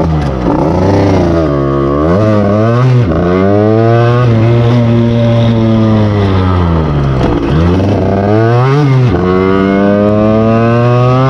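49cc two-stroke motorcycle engine breathing through an open Polini air filter and a Dell'Orto PHBL 24 mm carburettor, revved up and down over and over. Its pitch drops and climbs again several times: about two seconds in, near three seconds, around seven and a half and near nine seconds.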